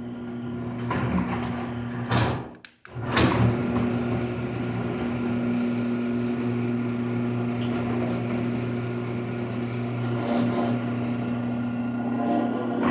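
Electric garage door opener running with a steady motor hum as it moves the door. It stops briefly about two and a half seconds in, then starts again and runs on steadily.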